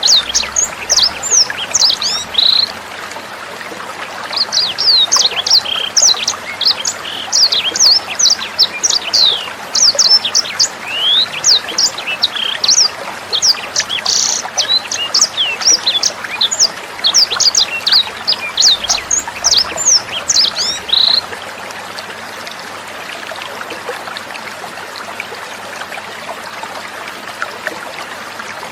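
Sanger songbird singing fast runs of high, sweeping chirps over a continuous trickle of water; the birdsong stops about three quarters of the way through, leaving only the trickling water.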